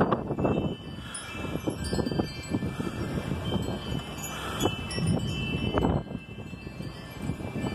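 Metal tube wind chimes ringing as gusts swing them, with gusty wind rushing over the microphone.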